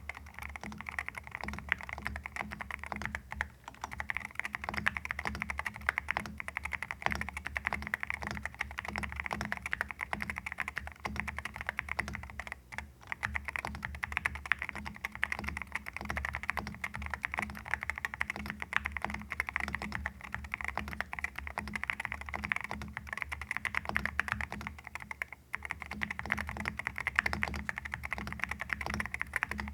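Continuous fast typing on an Akko MU02 mechanical keyboard in its stock wooden case, with Akko Rosewood linear switches and PBT MOA-profile keycaps: a dense patter of keystrokes that breaks off briefly three times.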